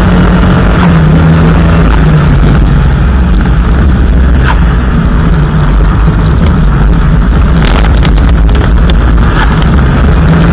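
Mitsubishi Lancer EX turbo rally car driven hard on gravel: the engine runs at high revs, its note stepping up and down in pitch, over a heavy, loud rumble of the car on the loose surface, with a few sharp ticks in the second half.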